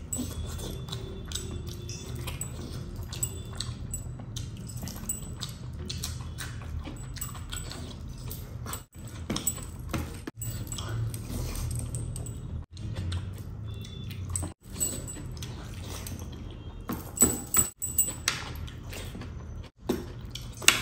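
Close-miked eating by hand: fingers squishing and mixing rice into fish curry on a plate, with chewing, and the heavy metal rings and bracelets on the hand clinking, the sharpest clinks a few seconds before the end.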